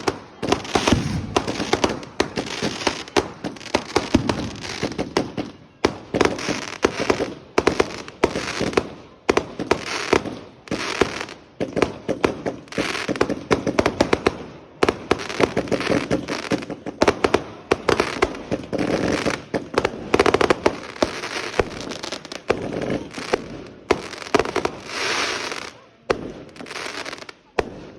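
Fireworks going off in rapid succession: a dense run of sharp bangs and crackling, thinning out near the end.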